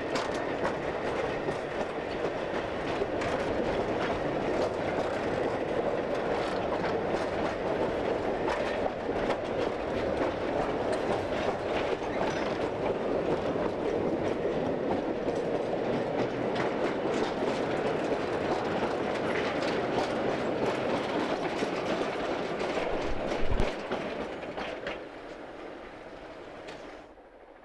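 Narrow-gauge slate wagons of a gravity train coasting downhill, their wheels rumbling and clattering over the rails, heard from aboard a wagon. A loud knock comes about 23 seconds in, and then the sound fades away near the end.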